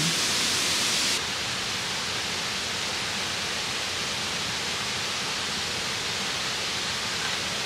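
Steady rushing noise with no distinct events. About a second in it drops a little in level and loses its highest hiss, then holds even.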